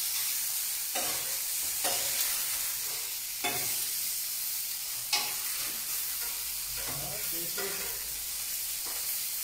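Chicken pieces sizzling in oil on a heavy porcelain-enamelled plancha, with a metal spatula scraping across the plate and turning them every second or two.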